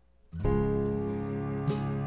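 Music starts suddenly about half a second in, opening with a chord that rings on. A new chord is struck near the end.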